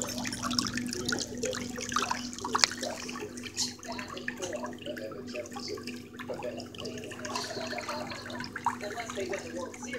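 Water churning and splashing in a pedicure spa foot bath driven by its whirlpool jets, with a steady low hum underneath.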